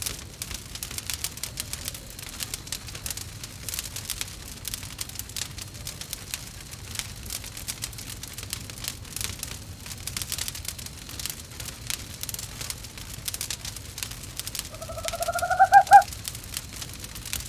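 Wood fire crackling in a fireplace with steady small pops, and near the end one short owl call, a wavering trill that rises slightly and stops abruptly, louder than the fire.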